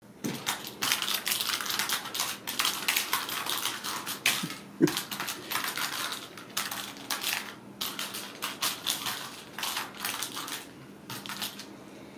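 Kittens playing with a toy ball: irregular rattling and clicking in dense runs, thinning out near the end.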